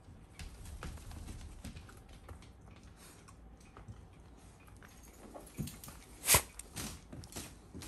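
Shiba Inu's claws clicking on a vinyl floor as it walks, with scattered small ticks. About six seconds in there is a loud sharp knock, then a few smaller ones.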